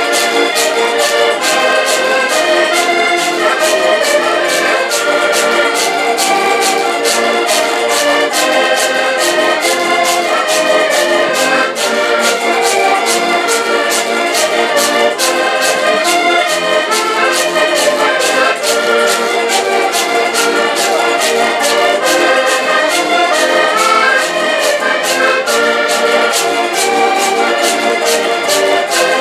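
An ensemble of diatonic button accordions playing a lively Portuguese folk tune in unison with a small strummed guitar, to a steady quick beat of about three strokes a second.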